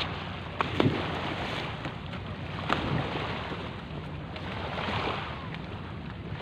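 Wind buffeting the microphone over the wash of sea water against a concrete seawall, with a couple of short knocks about a second in and near three seconds in.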